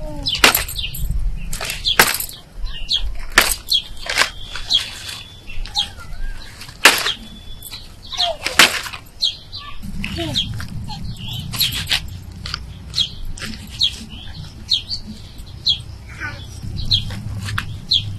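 Leafy stems rustling as leaves are stripped off by hand, with several sharp snaps of the stalks breaking, the loudest in the first nine seconds. Small birds chirp in the background.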